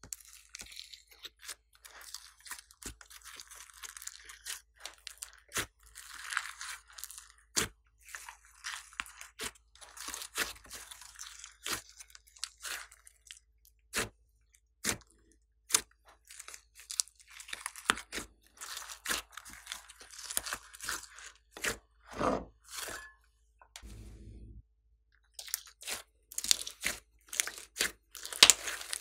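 Glossy slime being kneaded, squeezed and folded by hand: a stream of sticky crackling with many sharp pops.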